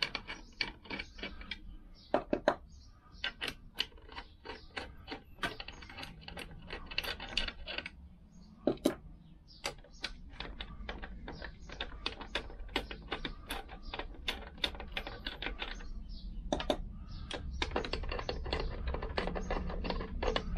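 Socket ratchet clicking in quick runs, with small metal clinks, as the gearbox end plate nuts are undone; the clicking pauses briefly a few times.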